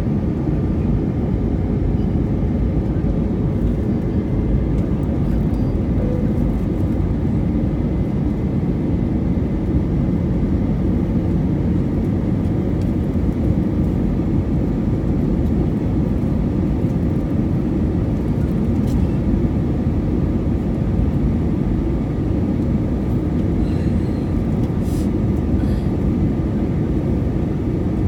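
Jet airliner cabin noise on descent: the engines and rushing air make a steady low rumble, with faint steady tones above it.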